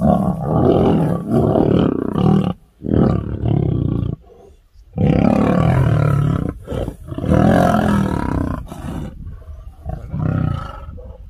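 Male lions roaring during a fight, in several loud, rough bouts with a short lull about four seconds in, fading near the end.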